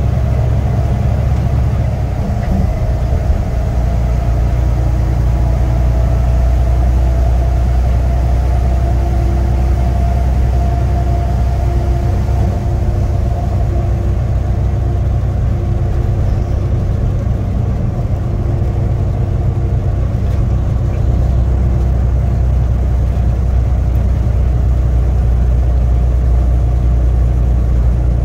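Semi-truck's diesel engine running under load, heard from inside the cab as a steady low drone whose pitch shifts twice, as with gear changes.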